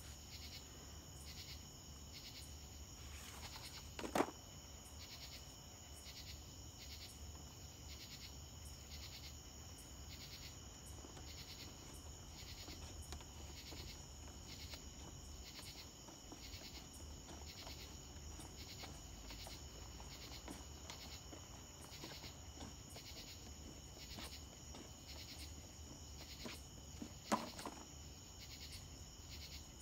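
Crickets chirping in a steady, even pulse at night. A short knock sounds about four seconds in and another near the end.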